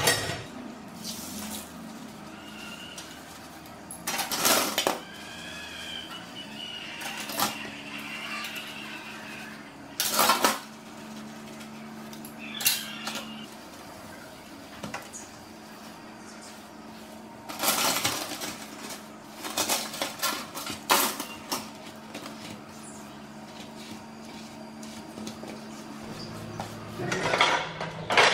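Steel spoons and forks clinking and clattering against each other and the stainless-steel sink as they are washed and scrubbed. The sound comes in irregular clusters with quieter gaps between.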